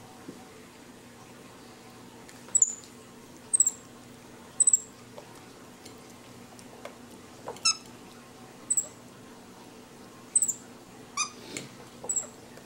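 Capuchin monkeys giving a string of short, very high-pitched chirps, each falling slightly in pitch, about one a second, with a couple of lower squeaks near the end.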